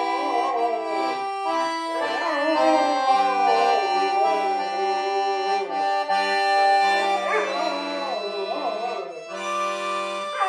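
Piano accordion playing held chords while a Labrador howls along, its voice wavering up and down in pitch in several stretches over the music.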